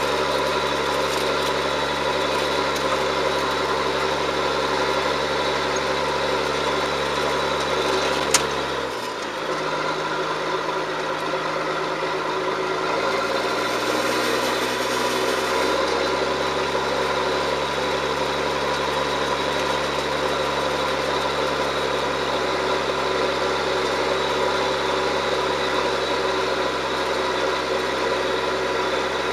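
John Deere 7710 tractor's six-cylinder diesel running steadily while pulling a Lemken EurOpal 7X plough. About eight seconds in there is a sharp click, then the engine revs drop, shift over the next several seconds, and settle back to a steady run.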